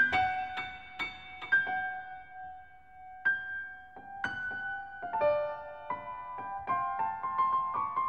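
Background piano music: a slow, sparse melody of single struck notes that ring and fade, growing busier in the last few seconds.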